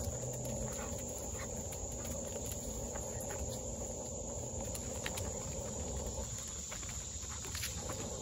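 Footsteps of a walker and two leashed dogs on a wood-chip trail, irregular soft crunches, over a steady high insect hum and a low rumble.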